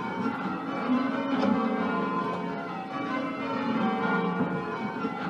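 Change ringing on a ring of ten church bells in F, 13 cwt tenor, cast by Mears and Stainbank, Gillett and Johnston and Whitechapel. The bells sound in a steady stream of overlapping strikes, each note ringing on into the next.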